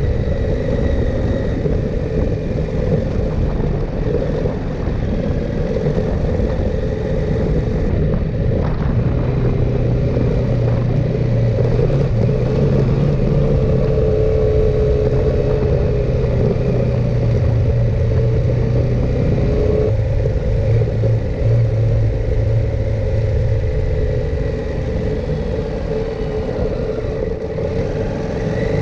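KTM 890 Adventure R's parallel-twin engine running steadily under way, mixed with steady wind rush, the revs rising near the end.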